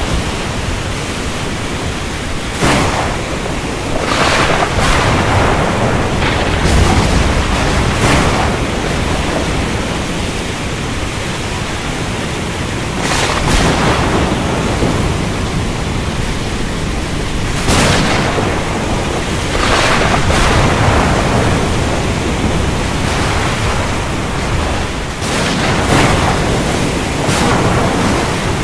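Thunderstorm at sea: a steady rush of rain and ocean that swells in surges every few seconds, with low thunder rumbling underneath.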